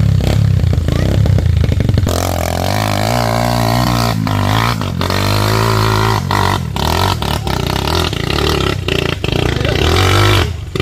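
Honda CRF150L's single-cylinder four-stroke engine running under way, its pitch dropping about two seconds in and then rising and falling with the throttle.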